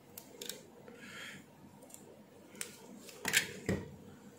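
Light clicks and snaps of a hand tool's jaws working at a small shorted, burnt metal oxide varistor (MOV). A sharper cluster of snaps comes a little past three seconds in.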